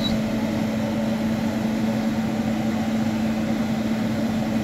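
Kitchen exhaust fan running with a steady hum and a low steady tone.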